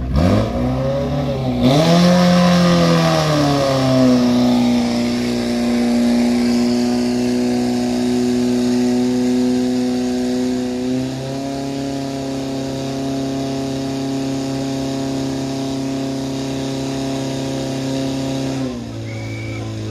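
Portable fire pump engine revved hard, its pitch swinging up and down, then held at high revs while pumping water out through the hose lines. Its pitch steps up about eleven seconds in and drops back shortly before the end.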